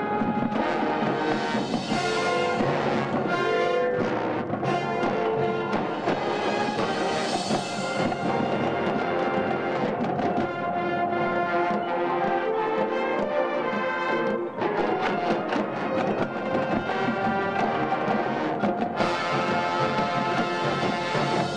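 High school marching band playing, brass and percussion together.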